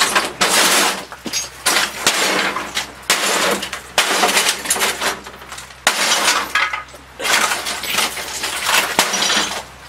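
Sledgehammer blows smashing the plastic back cabinet of a CRT television, each strike cracking plastic and scattering broken debris with a crunch and clatter. There are several strikes, a second or two apart.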